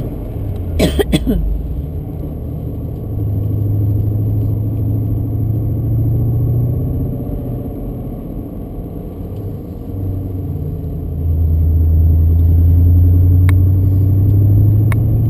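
BMW Z8's V8 engine running at a steady road pace under way, heard from inside the car. The engine note grows louder about three seconds in, eases off, and swells again from about eleven seconds.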